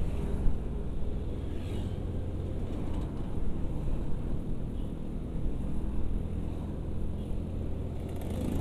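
Motor scooter riding along a road: steady engine and road noise with a low rumble, other traffic around it.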